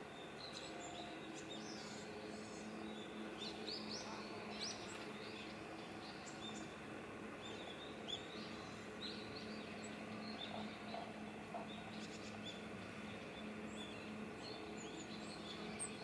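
Coal tits calling: many brief, thin, high-pitched notes, scattered through and sometimes overlapping, over a steady low hum of background noise.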